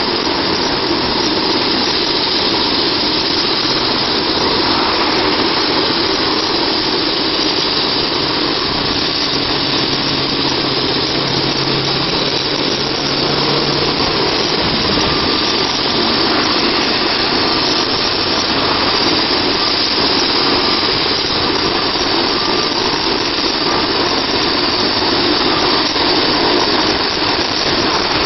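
Air-medical helicopter's turbine engine and rotor running steadily at idle on the helipad, warming up before take-off.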